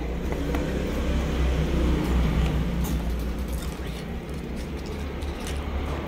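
A steady low rumble, strongest about a third of the way in, with a few faint ticks of fingers and food against the bowl and a plastic dipping cup.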